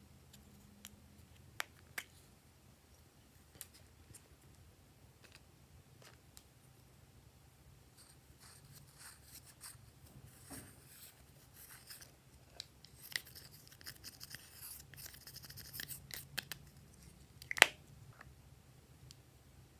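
An eyeshadow compact clicking a few times as it is opened, then pressed eyeshadow powder being scraped and crumbled out of the pan with a cotton swab, a dry scratching with small clicks that builds through the second half. A sharp click near the end.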